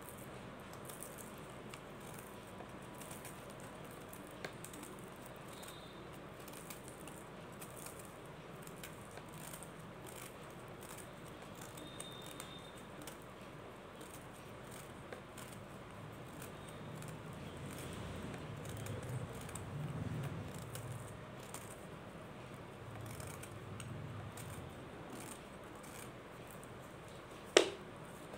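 Metal tweezers scraping and crumbling the top of a white mothball cake, a faint gritty scratching made of many small ticks. One sharp click near the end.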